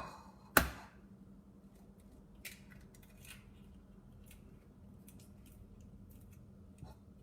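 An egg cracked sharply against the rim of a mixing bowl about half a second in, followed by a few faint small clicks as the shell is pulled apart.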